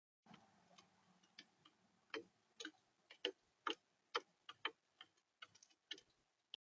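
Faint, irregular sharp taps and clicks close to the feeder camera's microphone, a bird pecking at seed on the feeder, with the loudest taps in the middle.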